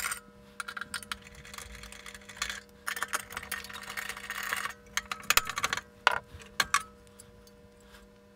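Hands taking apart a scanner's optics assembly: rustling and scraping of cables and plastic parts, then several sharp clicks about five to seven seconds in. A faint steady hum runs underneath.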